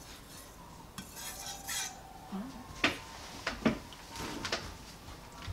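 Steel kitchen-knife blade drawn across a fine whetstone in a short scrape, followed by several sharp metallic clicks and taps as the knife is lifted off the stone and handled.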